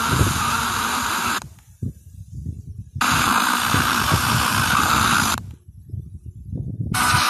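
FM radio receiver tuning between stations: loud white-noise static, which twice drops out for about a second and a half to a faint, muffled weak signal, and near the end a station comes in.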